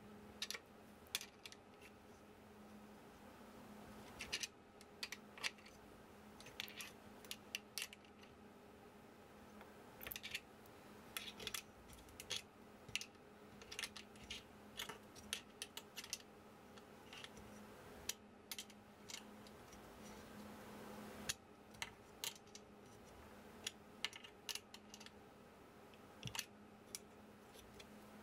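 Small metal clicks and taps, irregular and scattered, as a small open-end wrench works the nuts and bolts on a laser engraver's aluminium frame, over a faint steady hum.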